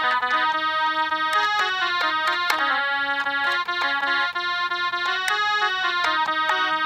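Mini electronic keyboard playing a simple melody one note at a time, a few notes a second, in a reedy, accordion-like voice.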